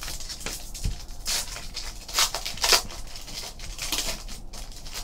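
Foil wrapper of a trading card pack crinkling and tearing as it is ripped open by hand, in several sharp rustles.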